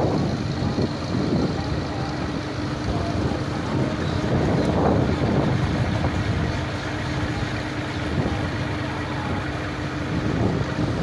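Wind buffeting the microphone, with a faint steady hum underneath that starts shortly after the beginning and stops near the end.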